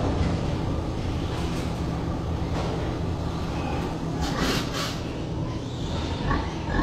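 Steady low mechanical drone of a pig barn's ventilation fans, with a few short hissing or clattering noises about four to five seconds in.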